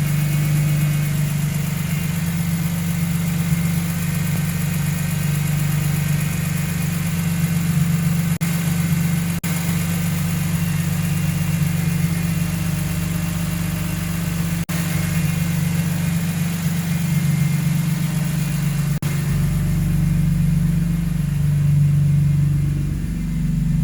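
BMW engine idling steadily after a VANOS (variable cam timing) rebuild, making the noise the owner is concerned about while a P0012 code (camshaft timing over-retarded) is set. The pitch shifts briefly near the end.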